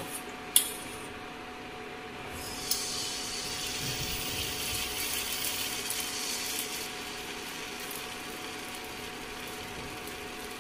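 Rice-flour batter sizzling in a hot non-stick pan as it is poured and spread round with a ladle, over a steady hum from the induction cooktop. Two light knocks of the ladle against the pan come in the first three seconds.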